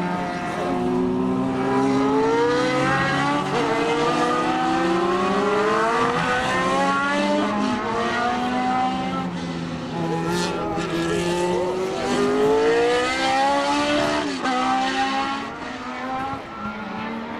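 Historic Formula One race car engines accelerating hard out of a corner, rising in pitch and dropping back at each upshift through several gear changes. The sound fades as the cars pull away near the end.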